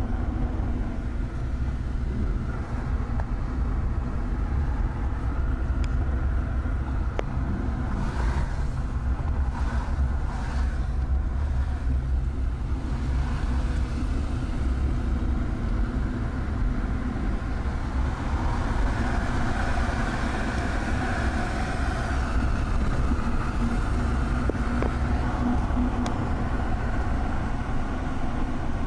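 Truck running with a steady low rumble, with a rushing noise on top that grows louder for several seconds past the middle; the owner's truck is making a noise that concerns them.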